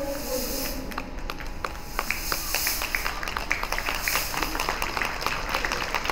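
Audience applause: many scattered, irregular hand claps. The last held note of the music fades out in the first half-second.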